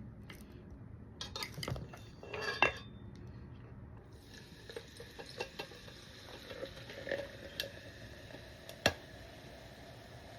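Cutlery clinking and scraping against a dish, with scattered small knocks and two sharper knocks, about two and a half seconds in and near the end.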